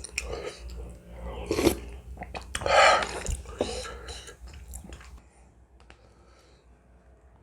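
A person eating ramen noodles close to the microphone: wet chewing and slurping mouth noises, with two louder bursts within the first three seconds, fading to faint clicks over the last two seconds.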